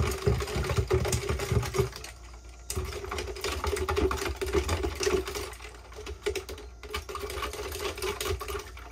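A metal spoon stirring sugar water inside a plastic bottle: fast, irregular clicking and rattling of the spoon against the bottle, with a short lull about two seconds in. A steady low hum runs underneath.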